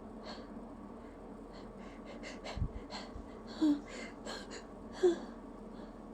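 A person's quick, catching breaths and sniffs while fighting off an oncoming hay-fever sneeze, with two brief squeaky voice sounds a little past the middle.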